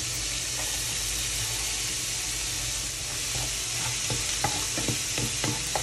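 Minced garlic sizzling in hot olive oil in a frying pan, with chicken deep-frying in oil alongside, a steady hiss. From about three and a half seconds in, a wooden spatula stirs the garlic, adding light taps against the pan.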